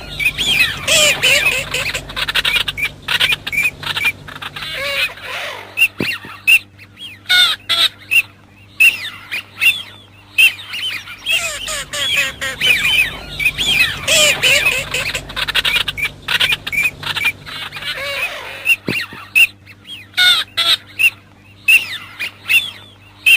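A flock of Eurasian teal calling: many short, high calls and squawks overlapping, thinning out twice to scattered single calls, over a steady low hum.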